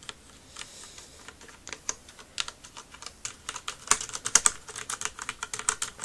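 Keystrokes on a Ducky Shine DK-9087S mechanical keyboard with Cherry MX Red linear switches: scattered presses at first, then a quicker, louder run of keystrokes in the second half.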